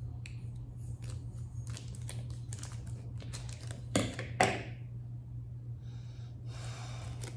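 Plastic jerky wrapper crinkling and tearing as it is opened, with two louder rustles about four seconds in. Near the end, a sniff as the meat is smelled. A steady low hum runs underneath.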